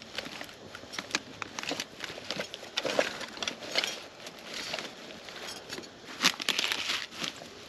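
Rummaging through a camp pack: bag fabric and plastic packets rustling and crinkling, with scattered small clicks and knocks of gear.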